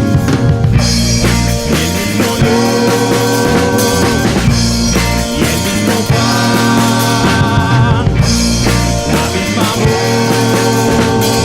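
Rock band playing live: a drum kit and bass under long held melodic notes, some wavering, that come in and drop out every few seconds.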